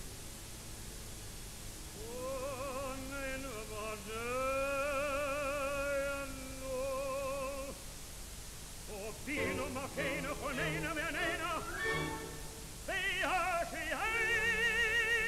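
Solo voice singing in an operatic style with wide vibrato. Long held notes come first, then quick ornamented runs, then held notes again, louder, near the end.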